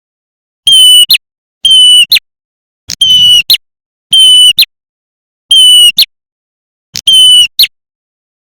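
Prinia (prenjak) lure call, an edited looped recording: a loud, clear whistled note with a quick upward flick at its end, repeated six times about every second and a half, with dead silence between calls.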